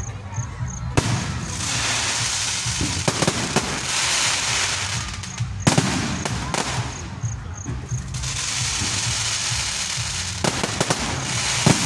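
Fireworks going off: sharp bangs at irregular intervals over long stretches of hissing and crackle, with a steady low hum underneath.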